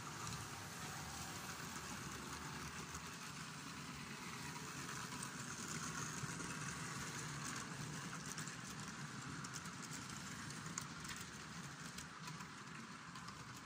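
OO gauge model container train running along the layout track: a steady motor hum and wheel rumble on the rails, a little louder in the middle as the wagons pass nearest, with scattered light ticks.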